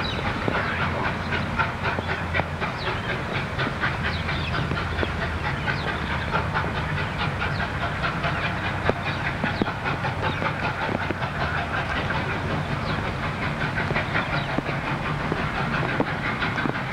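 Steam locomotive on the move, its exhaust beating in a rapid, steady rhythm.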